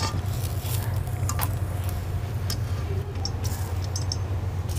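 A few scattered light taps and metallic clinks, as parathas are patted out by hand and turned with a long metal spatula on a black iron tava, over a steady low hum.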